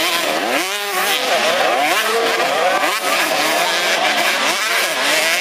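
Several 85 cc two-stroke motocross bikes racing up a hill together, their engines revving hard with many overlapping pitches rising and falling.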